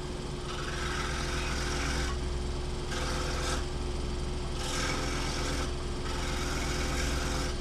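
Scroll saw running with a steady hum, and four short spells of rasping as the corners of plexiglass gear teeth are filed against the reciprocating tool to break their sharp edges.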